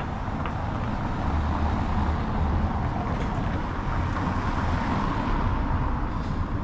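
Steady low rumble and hiss of city street noise, with no sharp events.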